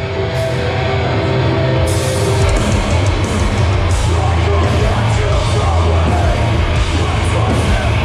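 Hardcore band playing live and loud through a PA, heard from inside the crowd: heavy distorted guitar and bass with held notes, then drums and cymbals crash in about two seconds in.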